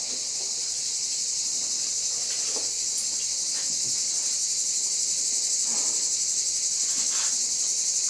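A steady, high-pitched chorus of insects, droning without a break.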